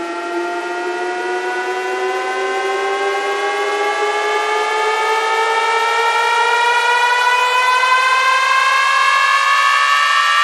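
Electronic siren-like warning tone rising slowly and steadily in pitch and growing louder over a hiss: the build-up riser of a DJ sound-check warning track.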